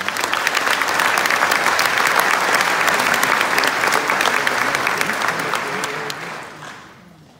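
Audience applauding, a dense, steady clapping that fades away about six and a half seconds in.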